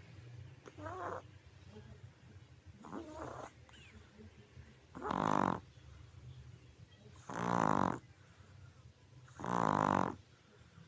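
Pug snoring loudly in its sleep: two softer snuffling breaths, then three loud snores about two seconds apart.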